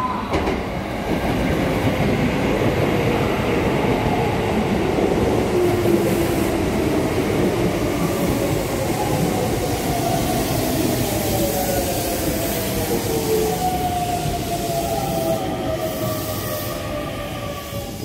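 Keisei 3700 series electric train pulling into a station platform, with wheels running on the rails. The motor whine falls steadily in pitch as the train brakes to a stop.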